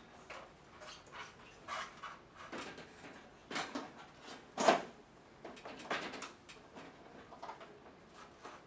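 Irregular knocks, clicks and scrapes as a glass top panel is handled and seated into the top of a modular office wall panel from an aluminium stepladder, with the loudest knock about four and a half seconds in.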